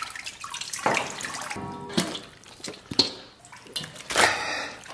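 Water sloshing and splashing as chunks of beef shank are moved by hand in a stainless steel pot of soaking water, with a few sharp knocks of meat against the pot. A louder splash comes about four seconds in.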